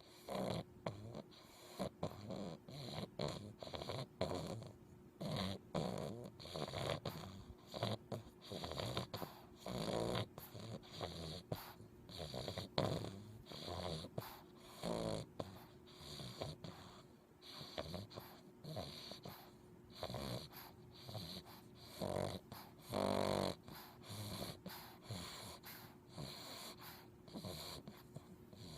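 English Bulldog puppy softly snoring in its sleep: quick, short snoring breaths about two a second, with a few longer, louder snores now and then. Snoring like this is typical of the breed's short, flat muzzle.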